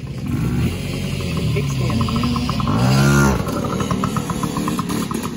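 Yamaha PW80 two-stroke single-cylinder dirt bike engine revving as the bike rides up and passes close by. It is loudest about three seconds in, then the pitch drops as it moves away.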